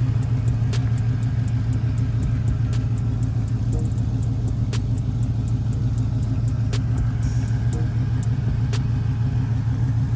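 Steady low rumble of a running vehicle, with a faint click about every two seconds.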